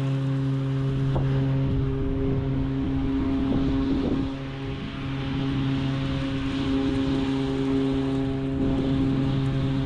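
Toro Revolution Grandstand battery-powered stand-on mower running under load while cutting grass: a steady electric hum made of a few even tones. The lowest tone wavers about two to four seconds in, and the level dips briefly just after, before it settles back to steady.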